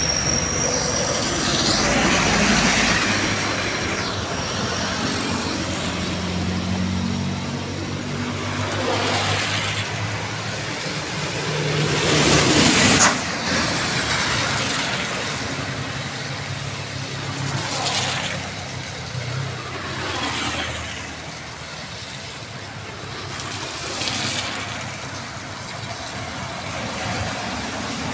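Vehicles driving past one after another on a rain-soaked, water-covered road, their tyres hissing and throwing up spray in a swelling swoosh with each pass. A truck's engine runs under the first half, and the loudest swoosh, which ends abruptly, comes about halfway through as a heavy truck passes.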